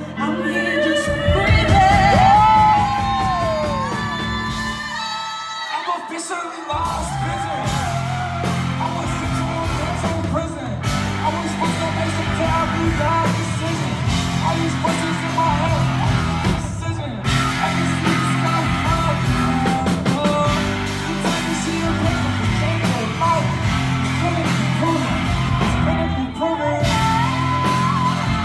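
Live hip-hop concert music over a PA with a heavy bass line, and the crowd yelling and singing along. The bass drops out about five seconds in and comes back about a second and a half later.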